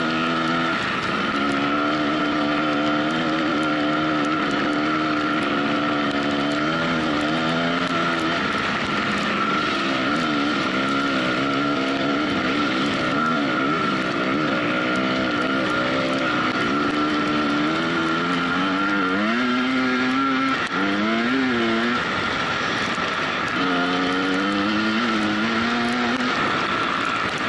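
Off-road motorcycle engine running under constantly changing throttle, its pitch wavering and rising and falling as the bike is ridden, with quick rev blips about twenty seconds in.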